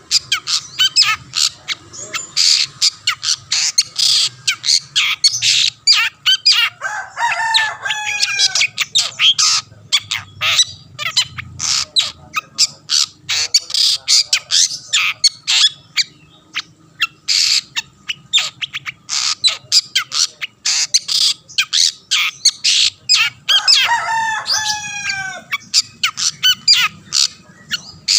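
Long-tailed shrike singing without pause: a rapid stream of harsh, scratchy chattering notes, broken twice, about a quarter of the way in and near the end, by a run of falling whistled notes.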